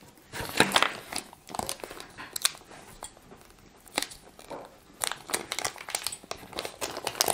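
Small clear plastic bag of mounting hardware crinkling and rustling as it is handled and opened, in irregular crackly bursts.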